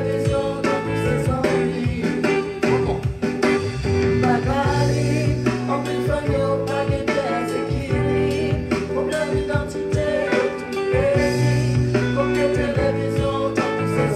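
Music: a song with a singing voice over guitar and a steady beat.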